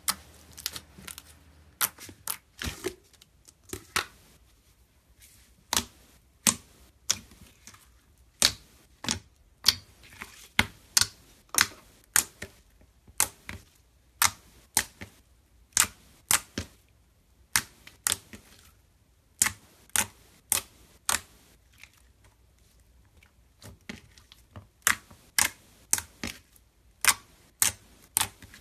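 Fingers pressing and kneading slime, making sharp clicking pops, about one to two a second and often in quick pairs.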